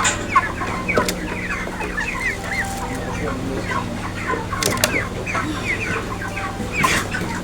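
A flock of chickens clucking and peeping, many short overlapping calls at once, over a steady low hum, with a few sharp clicks.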